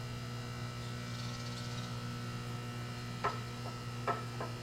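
Steady electrical mains hum, with a few light metallic clicks near the end as the Bridgeport mill's knee is brought up against a gauge block.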